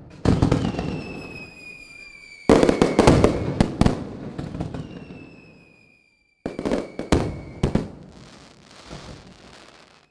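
Dense crackling like fireworks, with a thin whistle falling slowly in pitch above it. It comes in three stretches, starting suddenly at the start, about two and a half seconds in and about six and a half seconds in, each fading away.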